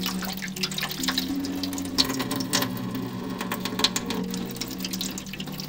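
A thin jet of water runs from a small hole in a plastic bottle and splashes steadily into a clear plastic tub below, over soft background music.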